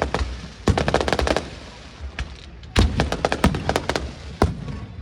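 Fireworks going off in rapid volleys of sharp bangs, two dense crackling clusters and then a single loud bang near the end.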